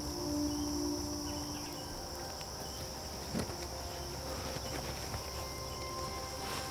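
A steady, high-pitched insect chorus, with a soft knock about three and a half seconds in.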